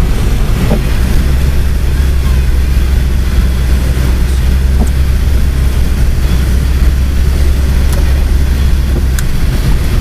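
A car driving on a snow-covered road, heard from inside the cabin: a loud, steady low rumble of engine and road noise that eases off near the end.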